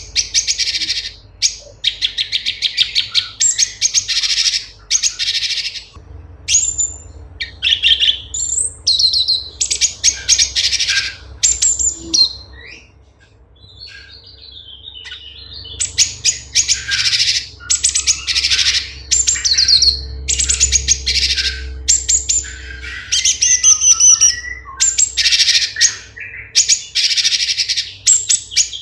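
Cucak cungkok (orange-bellied leafbird) singing. It gives long runs of loud, rapid, high-pitched chattering and trilling phrases, with a short quieter pause about halfway through.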